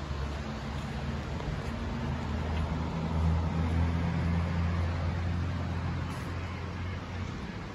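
Porsche 944's four-cylinder engine running at low revs as the car rolls slowly nearby. The low hum swells about three seconds in and eases off near the end.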